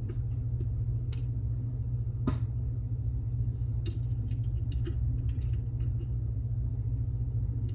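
Faint, irregular metallic clicks and ticks of a lock pick and tension wrench working in a Mul-T-Lock Classic Pro cylinder, over a steady low hum.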